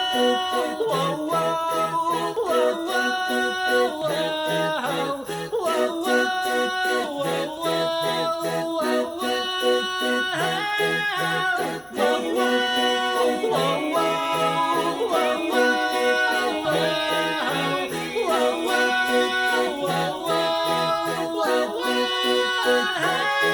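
Festive Christmas background music: a melody over a pulsing bass, with jingle bells shaken in a steady beat.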